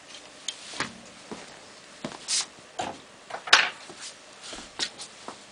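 Metal rotisserie spit fork being loosened and slid off the spit: scattered clicks and short scrapes, with one sharp click about three and a half seconds in.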